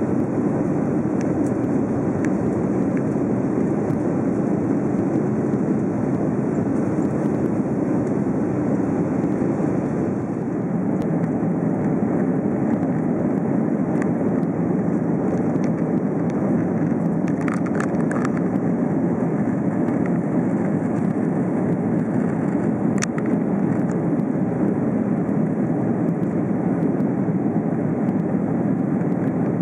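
Cabin noise of an Airbus A330-300 climbing out after takeoff: its Rolls-Royce Trent 700 engines and the airflow make a steady, deep rush. A few faint clicks come through about halfway in.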